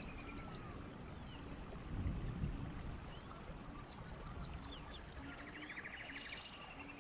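Birds singing in repeated phrases of fast trills and high, falling slurred notes every couple of seconds, with quiet music of low stepped notes underneath.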